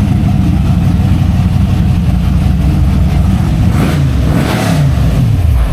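Historic racing car engine running hard, then passing close by from about three and a half seconds in, with its pitch falling and a rush of noise as it goes past.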